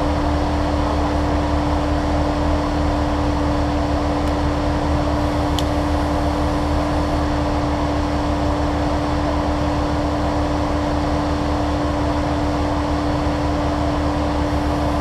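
Car engine running at a steady speed: a constant low hum with a steady, unchanging drone above it.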